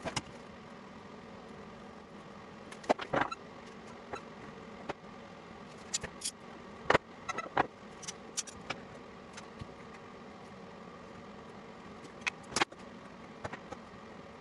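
Bar clamps and tools clicking and knocking on a wooden workbench in short irregular bursts as a glued box is clamped, the loudest about three, seven and twelve seconds in, over a steady hum.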